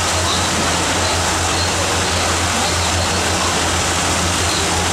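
Steady drone of the tour boat's engine with a constant rush of wind and water noise, unchanging throughout.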